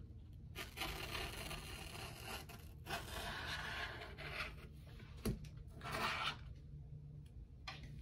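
Razor blade scraping old screen adhesive off the edge of an iPad's aluminium frame. There is a long stretch of scraping, a short sharp tick about five seconds in, then another brief scrape.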